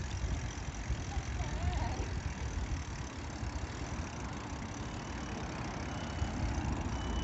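Low, uneven rumble of wind on the microphone and bicycle tyres rolling over brick paving while riding.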